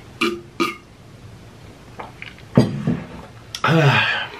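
A man gulps from a glass of water twice, then burps twice. The second burp is long and drops in pitch.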